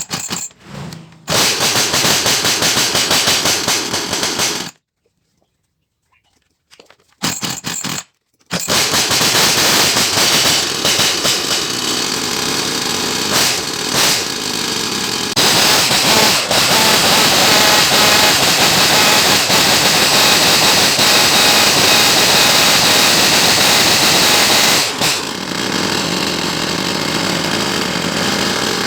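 Husqvarna 353 two-stroke chainsaw engine running loudly with a rapid buzzing beat. It is cut off suddenly twice in the first eight seconds, then runs without a break.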